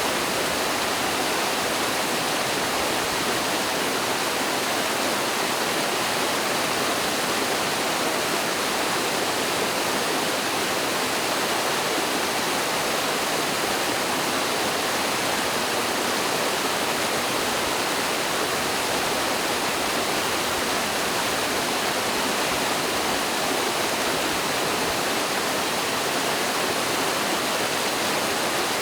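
Mountain stream water pouring down a waterfall, a steady, unbroken rush with no separate splashes or breaks.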